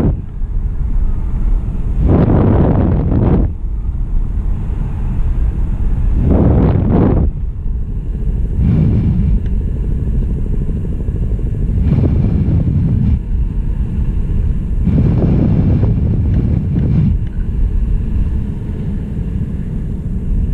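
Wind rushing over the microphone of a falling payload's onboard camera: a loud, low rumble that surges and eases every few seconds.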